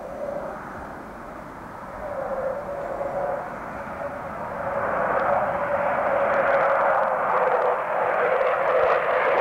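A pair of English Electric Lightning jet fighters approaching overhead, the rushing noise of their Rolls-Royce Avon turbojets growing steadily louder.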